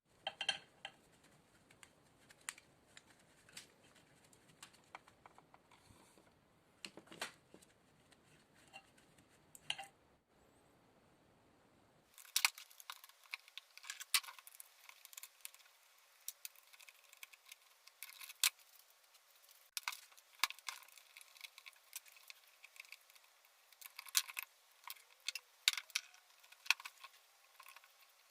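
Irregular clicks, light metallic clinks and short scrapes of small metal parts and hand tools being handled on an old drill. About twelve seconds in the sound changes abruptly to thinner, sharper clicks.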